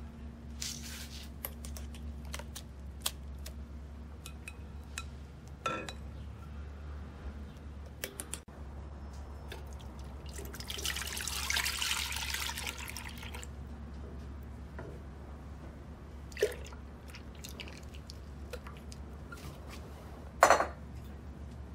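Soy milk poured from a glass bowl into a metal pot: a steady splashing pour of about three seconds midway. Light clicks of a spoon against glass come before it, and a couple of sharp knocks of kitchenware come near the end, over a low steady hum.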